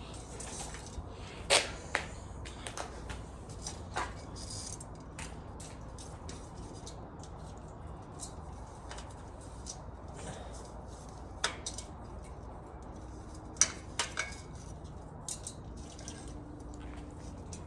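Scattered sharp clicks and small taps, about a dozen at uneven intervals, over a low steady background hum.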